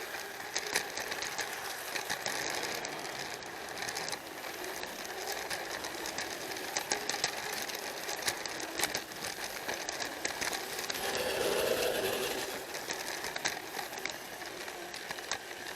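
Plarail battery-powered toy train running on plastic track: the motor and gearbox whirring steadily, with rapid, irregular clicks from the wheels crossing the rail joints. A lower hum swells briefly about eleven seconds in.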